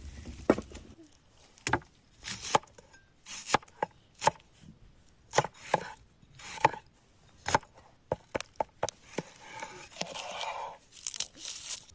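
Knife chopping food on a cutting board: about a dozen sharp, irregularly spaced chops, with a few short scraping sounds between them.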